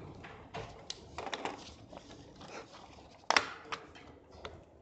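Scattered rustling and light clicks, with one sharp knock about three seconds in.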